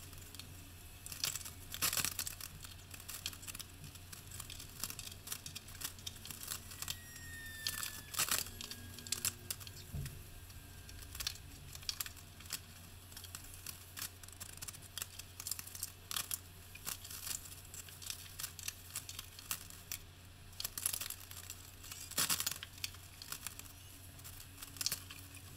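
Faint, irregular clicks and scrapes of ceramic subway tiles being pressed into thinset mortar and set against each other on a shower wall, with a few sharper clicks.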